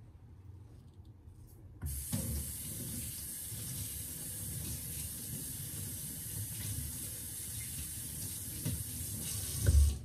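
Water running steadily from a kitchen tap into the sink as something is rinsed under it. It starts suddenly about two seconds in and cuts off just before the end, with a louder thump shortly before it stops.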